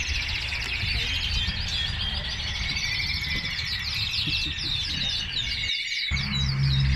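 Many caged domestic canaries singing at once, a dense chorus of fast high chirps and trills, over a low rumble.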